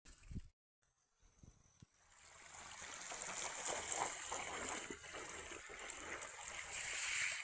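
River water running and trickling, fading in about two seconds in after a brief silence and then holding steady.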